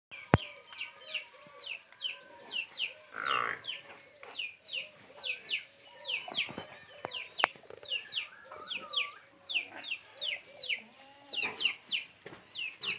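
Chickens clucking, over a constant run of short, high, falling chirps a few times a second. A couple of sharp clicks and a brief noisy burst cut through.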